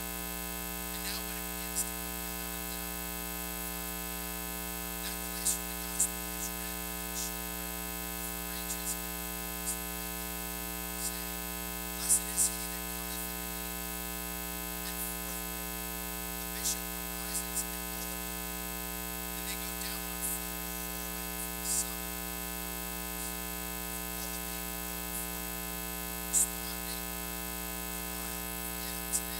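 Steady electrical mains hum and buzz made of many fixed, evenly stacked tones, dotted with short sharp clicks every second or two.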